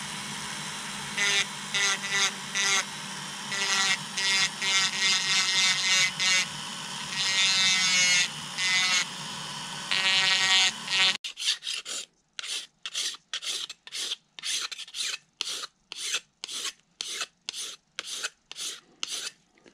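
Dremel rotary tool running at low speed with a solid carbide upcut spiral bit, grinding the edge of a phenolic template in repeated bursts; the motor stops about eleven seconds in. Then a hand file rasps along the template edge in steady strokes, about two a second.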